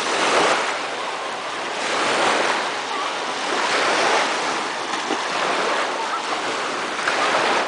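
Small lake waves breaking and washing onto a sandy shore, surging about every two seconds. A splash from someone wading is heard near the start.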